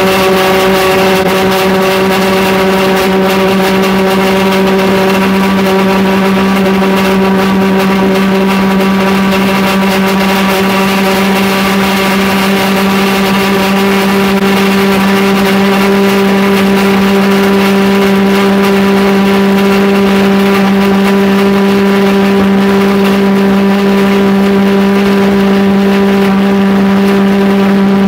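Homemade valveless pulse jet engine running on bottled gas: a loud, steady, deep buzzing drone with a rich stack of overtones, holding the same pitch throughout.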